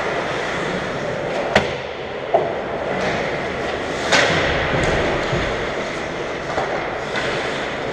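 Ice hockey play on an indoor rink: a steady rushing of skate blades on the ice and arena hum, with a few sharp clacks from sticks and puck about one and a half, two and a half and four seconds in.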